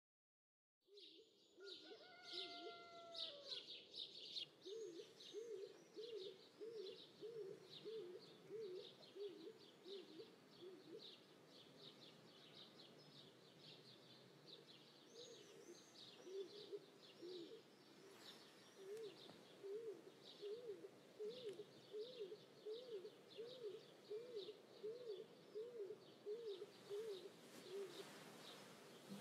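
Birds singing: a low call repeated about twice a second in long runs, over continuous high chirping, with a few longer held notes soon after the start.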